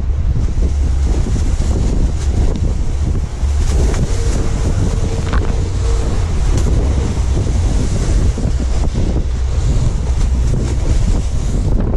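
Strong wind buffeting the microphone on a small open boat running through rough, choppy sea, with waves and spray washing against the hull.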